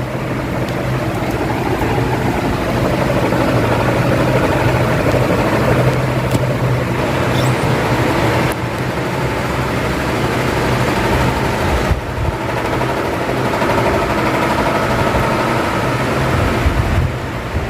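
Electric fan running: a steady motor hum under a rush of air from the blades, with a couple of brief breaks partway through.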